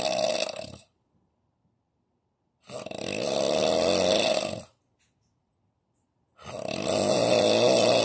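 A sleeping man snoring heavily through an open mouth, in long snores about every three and a half seconds: one dies away just after the start, a full one of about two seconds comes in the middle, and another begins near the end.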